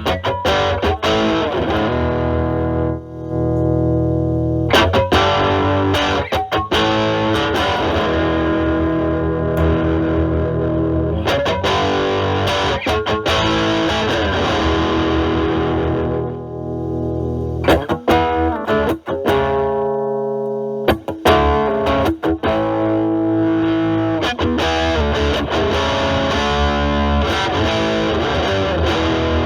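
Stratocaster with single-coil pickups played through a Metal Pedals Rawhide overdrive/distortion pedal, kick toggle down, into a Marshall Valvestate amp's drive channel: distorted chords and riffs. About two-thirds of the way in, the guitar's volume is rolled back and the tone cleans up.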